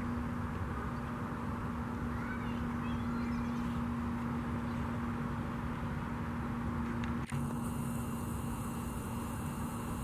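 Steady outdoor background rumble with a constant low hum through it, and a few faint high chirps about two to four seconds in.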